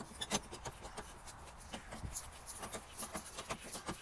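Floor jack being pumped to lift a car: a run of faint, irregular clicks and rattles.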